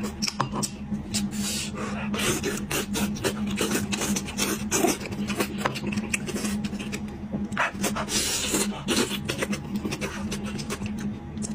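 Chewing, sucking and slurping as meat is gnawed off pieces of sheep's head bone, with many short wet smacking clicks throughout.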